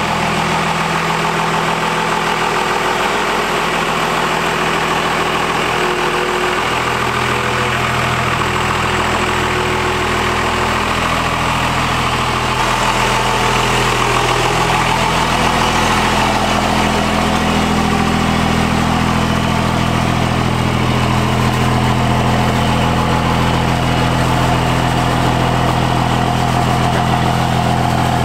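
Diesel pickup's 12-valve Cummins 5.9-litre inline-six turbodiesel idling steadily, growing a little louder and deeper about twelve seconds in.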